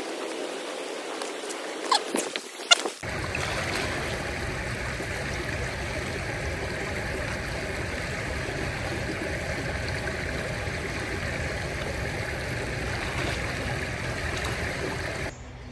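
Mountain creek water rushing steadily. A few sharp knocks come about two seconds in, then from about three seconds the water noise turns louder and fuller, with a low rumble under it.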